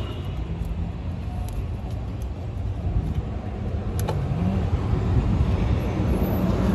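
Low, steady motor-vehicle rumble, with a single sharp click about four seconds in.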